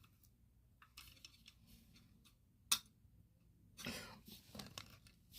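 Faint handling noises: a few light clicks, a sharp click near the middle, and a short rustle about four seconds in.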